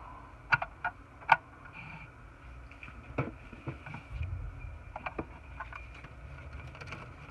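Hands handling plastic model-kit parts and sprues on a desk: a few sharp clicks and taps, several in the first second and a half and more around three to five seconds in.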